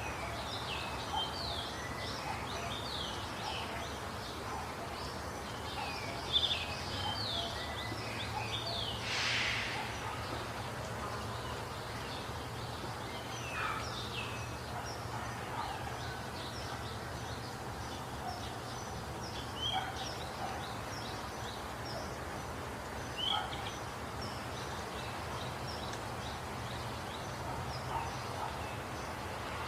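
Several songbirds chirping and calling in short, quick notes, over a steady low background rumble. A brief rushing noise sounds about nine seconds in.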